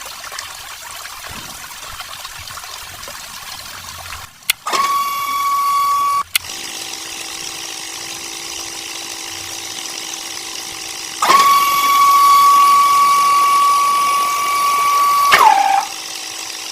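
Small DC motors of a homemade model drilling rig running. A faint steady hiss gives way to a high whine switched on for a second or two, then a lower steady hum. A louder high whine starts past the middle, drops in pitch near the end and cuts off.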